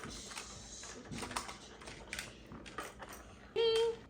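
Plastic magnetic building tiles clicking and clacking together in irregular taps as pieces are handled and snapped on. A brief high-pitched tone sounds near the end.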